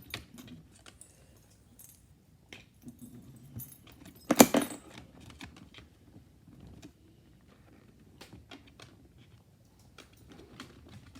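Light metallic jingling and clicking, like a dog's collar tags and buckles being handled, among soft rustling, with one louder sharp rattle about four and a half seconds in.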